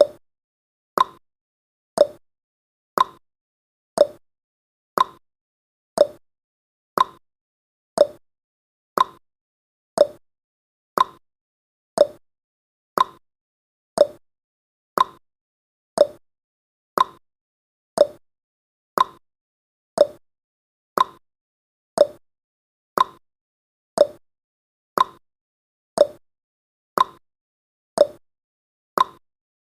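Ticking-clock sound effect of a countdown timer: one short, sharp tick every second, at an even pace and steady level.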